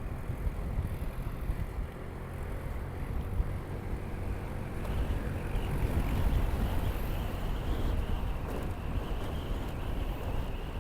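Motorcycle engine running while riding, with wind buffeting the action camera's microphone in a dense low rumble. It grows a little louder about halfway through.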